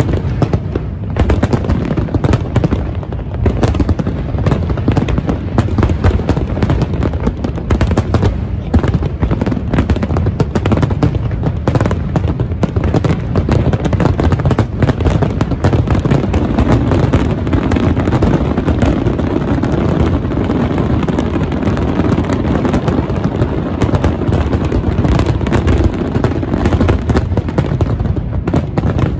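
Fireworks display: many aerial shells bursting in rapid succession, a dense, unbroken run of bangs and crackling.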